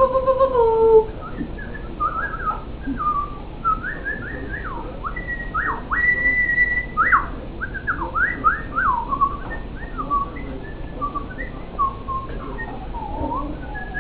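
Puppies whining and squealing: a held, wavering whine that drops in pitch and stops about a second in, then a string of short high squeaks and whimpers that slide quickly up and down.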